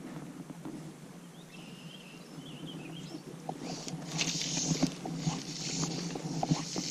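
Fly line being stripped in by hand in short pulls, each pull a rasping hiss with small clicks, starting about halfway through and getting louder.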